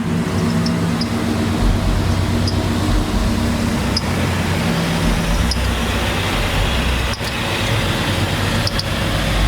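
Car engine running loud and steady, with a dense rushing noise over a low hum.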